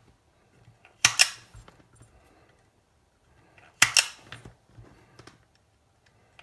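Two sharp snapping clicks, about three seconds apart, each dying away quickly, with a few faint ticks and light handling noise between them.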